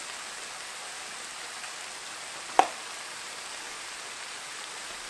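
Stir-fried vegetables sizzling in a stainless steel frying pan on a just-switched-off stove, a steady hiss from the pan's remaining heat. One sharp click sounds about halfway through.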